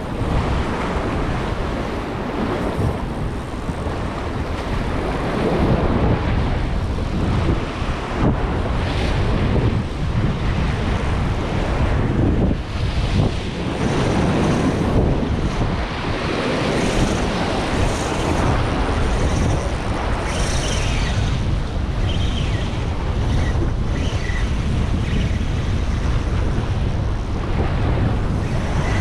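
Sea waves washing against rocks, with wind buffeting the microphone in a steady low rumble.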